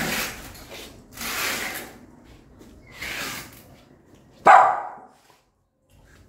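Small mother dog barking four times, about a second or more apart; the fourth bark is the loudest and sharpest.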